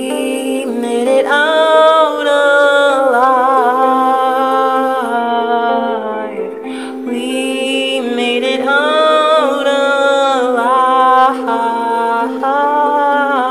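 A man's wordless singing, a held, wavering melody line, over a ukulele accompaniment.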